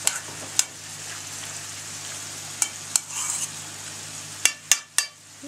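A spoon stirring diced Olivier salad dressed with mayonnaise in a bowl, making a steady wet mixing noise. The spoon clicks sharply against the bowl several times, three times in quick succession near the end.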